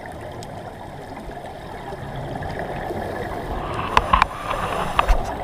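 Muffled underwater noise picked up through a camera's waterproof housing, swelling a little in the second half. A handful of sharp clicks and knocks come near the end.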